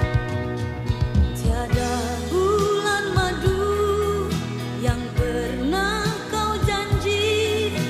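Background music: a pop song with a steady drum beat, a singing voice coming in about two seconds in.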